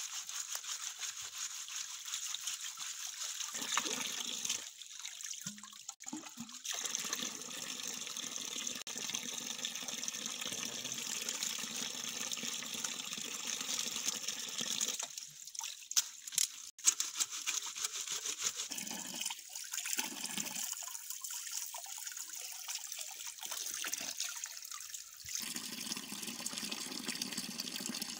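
Water running steadily from a split-bamboo spout and splashing onto rocks and into a stream, stirred by hands washing things in the flow. Two sharp knocks stand out a little past the middle.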